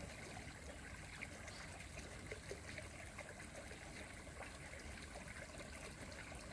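Faint outdoor ambience at the edge of a creek pool: a low, steady, water-like hiss with a few soft scattered ticks.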